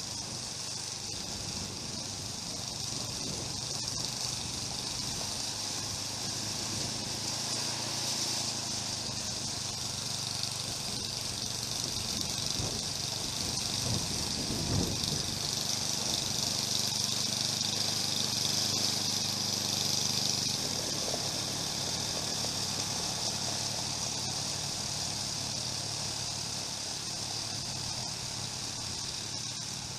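Snowblower engine running steadily, with a steady hiss over it; the engine note shifts a little midway.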